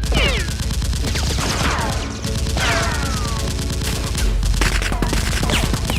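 Rapid, continuous automatic gunfire sound effects, shot after shot with no break, over a steady low bass. Several falling whines cut through the firing.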